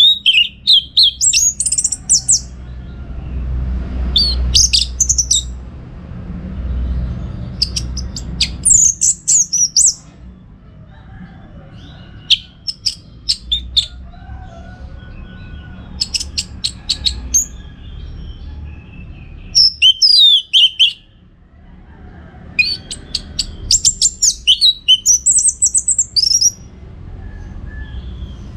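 Orange-headed thrush singing: loud phrases of rapid, varied high notes, trills and whistled glides, coming in bursts with short pauses, over a faint low rumble.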